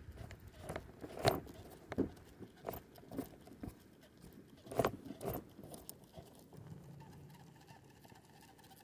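Scattered light clicks and knocks of fishing tackle being handled, a dozen or so irregular ticks in the first five or six seconds, then quieter.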